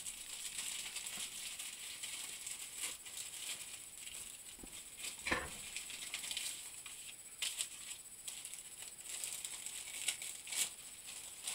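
Faint rustling and crinkling of packaging being handled by hand, with a few short sharper rustles, the loudest about five seconds in.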